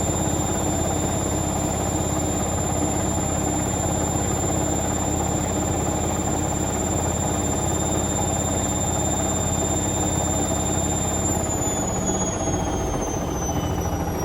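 Indesit Moon SIXL145 washing machine in its 1400 rpm final spin: a steady high whine over a low drum rumble. About eleven seconds in, the whine starts to fall in pitch as the spin begins to slow.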